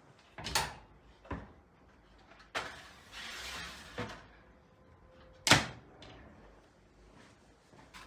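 Knocks and clatter of a metal baking tray being handled and set down: a few knocks, a short rushing noise about three seconds in, and a sharp bang, the loudest, about five and a half seconds in.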